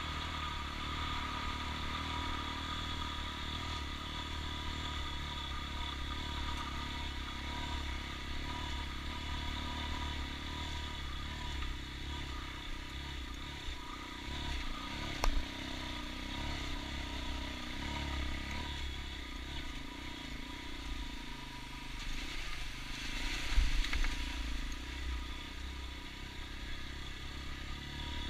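A vehicle's engine running steadily while driving over a rough gravel track, with rumble from the road surface. There is a sharp knock about halfway through and a louder clatter a few seconds before the end.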